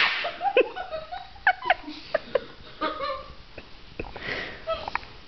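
Two girls giggling in short, broken bursts, some high-pitched, laughing from being tickled.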